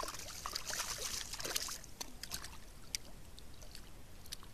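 Water splashing and trickling at the surface beside a boat's hull as a hooked fish thrashes, busiest in the first second and a half, then lighter crackles and drips.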